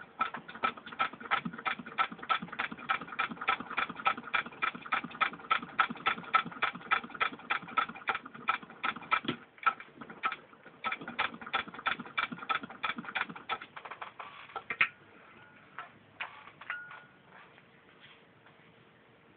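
Antique 1912 Singer 66 treadle sewing machine turned by hand, its needle stitching through six layers of denim: a steady mechanical clicking of about four stitches a second, with a short break about halfway, then slowing to a few scattered clicks and stopping about three-quarters of the way through.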